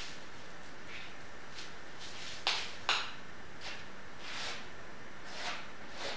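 Steel palette knife scraping and smearing acrylic paint across a stretched canvas: a series of short scraping strokes, the loudest two close together about two and a half seconds in, over a steady hiss.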